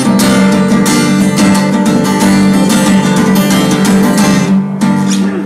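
Acoustic guitar strummed rapidly in a steady, driving rhythm over a held chord, played solo with no singing.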